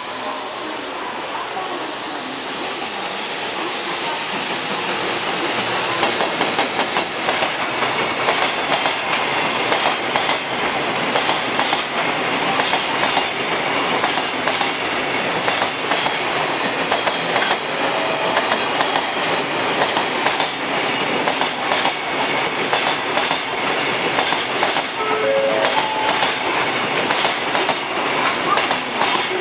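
Freight train of container wagons rolling past behind an EF210 electric locomotive, its wheels clattering steadily over the rail joints. It grows louder over the first few seconds as the train draws level, then keeps up a continuous rolling clatter.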